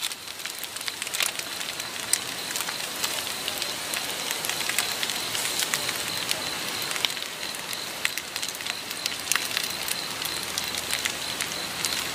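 Food sizzling and bubbling in a camping pot on a portable gas stove: a steady crackle of many small pops, with a thin steady high tone throughout.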